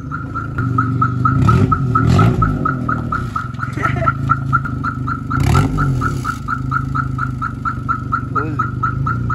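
Hyundai Eon's engine running with its silencer broken underneath, a loud exhaust rumble whose revs rise briefly about one and a half and five and a half seconds in. A quick, even beeping, about five beeps a second, runs over it.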